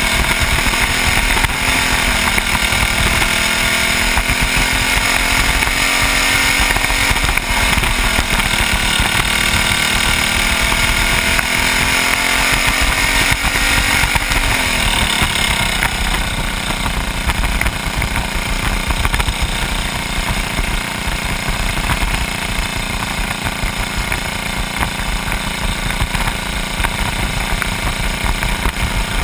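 A squirt-class dirt kart's small engine, heard from on board, running hard around the oval. Its pitch dips and climbs again through the corners, then settles to a lower, steadier note from about halfway through.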